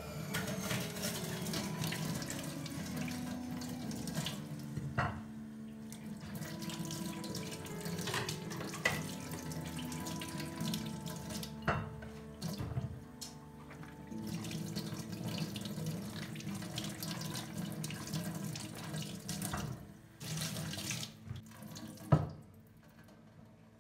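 A tap running into a kitchen sink, with a few sharp clinks of dishes being handled under it.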